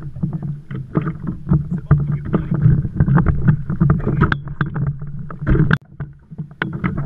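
Water slapping and knocking against a plastic kayak hull, giving rapid, irregular knocks over a steady low rumble.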